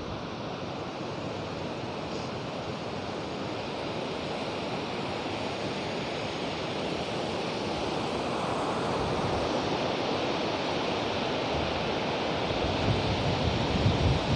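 A rocky mountain river rushing over boulders: a steady rapids noise that grows gradually louder, with wind buffeting the microphone near the end.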